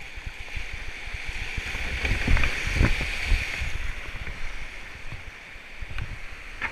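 Rushing white water and splashing as a kayak runs down a weir-like drop in a river rapid, loudest about two to three and a half seconds in, with low thumps of buffeting on the microphone.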